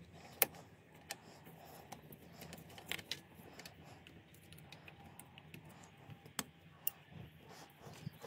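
Scattered sharp clicks and light rattles of plastic wiring connectors and loom clips being handled and snapped into place, over a faint steady hum.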